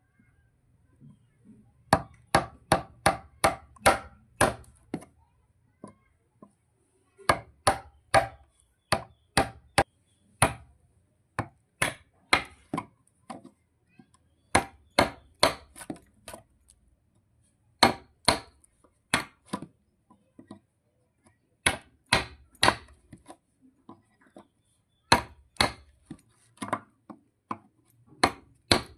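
Sharp hammer blows striking wood, in runs of about five to ten strikes at roughly three a second, with short pauses between runs.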